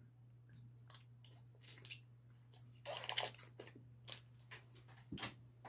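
Faint crinkling and crackling of a thin plastic wrapper being torn open to free a small plastic spoon: scattered short crackles, with a louder run of crackles about three seconds in.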